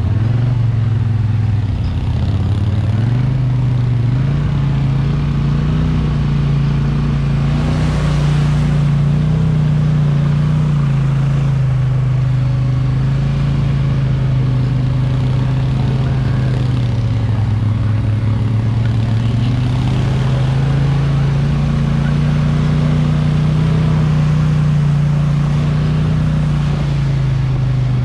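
Polaris Sportsman Highlifter ATV engine running steadily under way. Its pitch climbs about two seconds in, then rises and falls slowly with the throttle.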